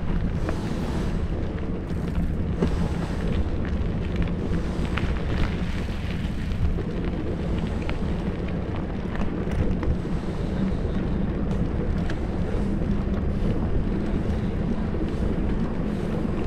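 Wind rumbling on the microphone of a camera riding on a moving bicycle, a steady low rumble, mixed with tyre noise on a concrete road and scattered small clicks and knocks over bumps.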